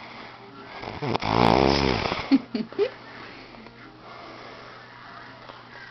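A sleeping man snoring: one loud snore about a second in, lasting about a second, followed by a few short, quieter sounds.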